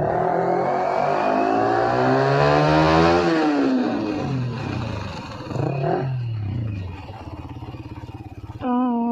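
Yamaha R15 V3's 155 cc single-cylinder engine revving through an aftermarket Akrapovic slip-on exhaust: one long rev rising for about three seconds and falling back, a shorter blip, then settling to idle. Near the end a loud, steady pitched tone starts.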